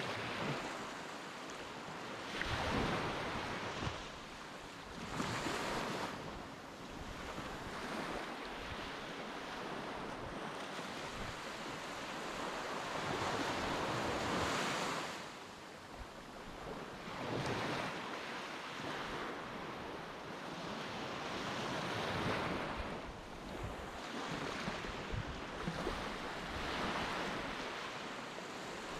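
Sea waves rushing in and washing back in irregular surges every few seconds, with wind buffeting the microphone.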